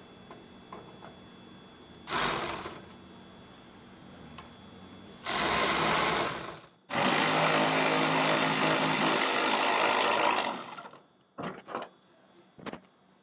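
Power driver spinning out T15 Torx screws in three runs: a short one about two seconds in, another about five seconds in, and the longest from about seven to eleven seconds. A few light clicks follow near the end.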